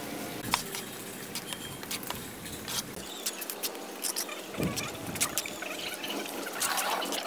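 Steel trowel scraping and spreading wet cement mortar over a brick wall, with many short, irregular scrapes and taps.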